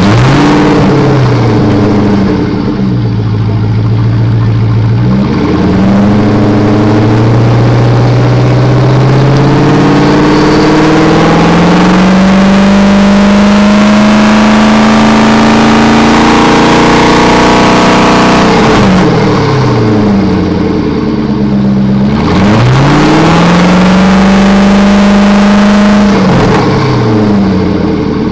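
Whipple-supercharged Ford GT's 5.4-litre V8 being revved, heard close to its exhaust tips: several quick throttle blips rising and falling, then a long hold at raised revs that climbs slowly for about twelve seconds, then more blips near the end.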